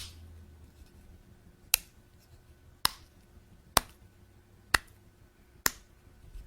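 Sharp hand slaps, six single cracks in a row about a second apart.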